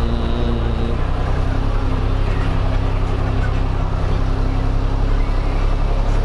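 Farmtrac 555 DT tractor's diesel engine running steadily, heard from inside the cab while it pulls a harrow across ploughed ground.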